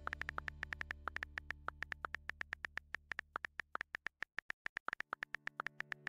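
Rapid, even keyboard typing clicks, about eight to ten a second, over a soft synthesizer pad. The pad fades out about four seconds in and comes back near the end.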